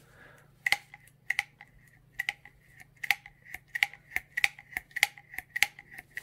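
Hydraulic hand riveter being pumped one-handed to set a 3/16 in. aluminium pop rivet: a run of short metallic clicks, about two or three a second, one with each squeeze of the handles.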